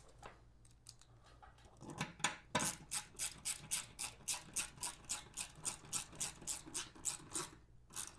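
Hand ratchet clicking in an even run of about five clicks a second while a fastener is driven in. It starts about two seconds in after some light handling noise and stops shortly before the end.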